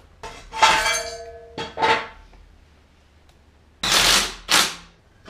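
Cordless impact wrench firing in short bursts on a wheel's lug nuts, about a second in and twice again near the end. Sharp metallic clinks ring between the bursts.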